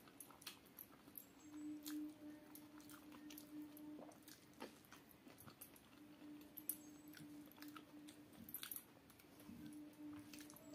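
Quiet, close chewing of a mouthful of rice and dal, with soft wet mouth clicks. Fingers squish and mix rice on a steel plate. A faint steady hum comes and goes in the background.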